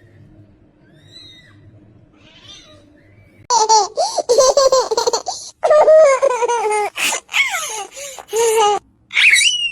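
Faint high chirping, then from about three and a half seconds in a person laughing loudly in repeated breathy bursts, with a rising squeal at the end.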